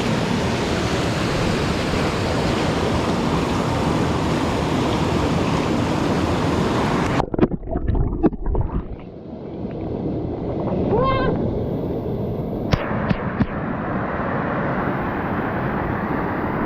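A fast, snowmelt-high creek rushing steadily, cut off abruptly about seven seconds in. After the cut come a few soft knocks and a short rising-and-falling pitched call, then a steady rushing noise resumes.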